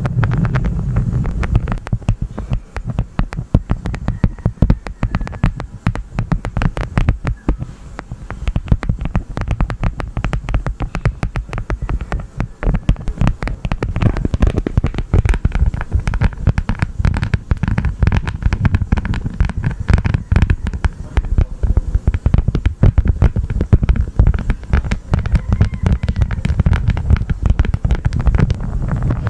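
Honeycomb crunched and squeezed close to the microphone: a dense run of small wax crackles and clicks.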